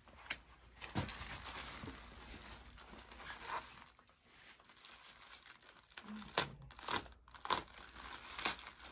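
Clear plastic wrapping and packing tape crinkling and tearing as they are cut open with a knife, with a sharp click about a third of a second in and scattered rustles and ticks after it.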